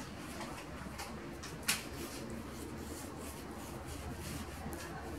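Faint rubbing and scuffing of a hand spreading butter over a thin sheet of rolled-out dough, with one light knock about one and a half seconds in.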